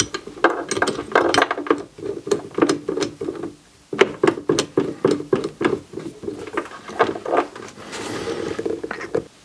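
Rapid metallic clicking and rattling as the chuck of a Bosch PBD40 drill press is turned by hand to clamp a circle cutter's shank.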